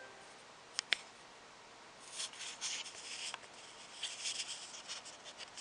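Handling noise on the recording device: two sharp clicks about a second in, then scratchy rustling and rubbing from about two seconds on as the camera is moved.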